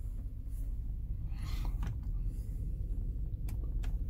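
Range Rover Sport engine idling with a steady low hum inside the cabin. A brief whirr about a second and a half in and a few short clicks come from the power mirrors being moved and their switch being worked.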